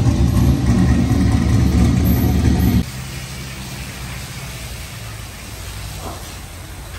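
A car engine idling loudly up close, cut off abruptly about three seconds in, after which a much quieter steady low hum remains.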